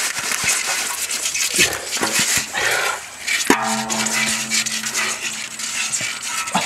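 A short hoe digging and scraping into a wet clay bank, with crunching and squelching mud and scattered knocks. About halfway in, a steady pitched whine holds for roughly two and a half seconds.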